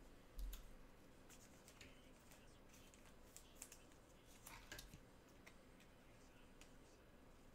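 Near silence with faint scattered clicks and rustles of trading cards and cardboard packaging being handled, including a soft thump about half a second in.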